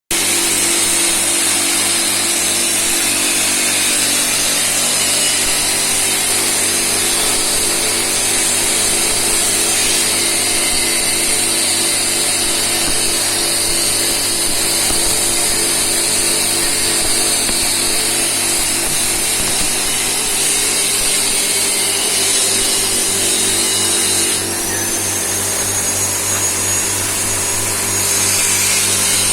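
Steady running of electric metalworking equipment: an even high hiss over a low electrical hum. About twenty-four seconds in, the hiss drops for a few seconds while a thin high whistle holds, then the full hiss returns.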